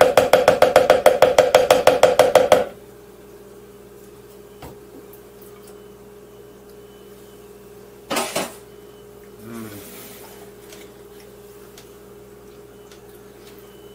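A rapid, even run of ringing clinks, a kitchen utensil knocked against a blender jar, stopping about two and a half seconds in. After that only a faint steady hum remains, with a short rustle about eight seconds in.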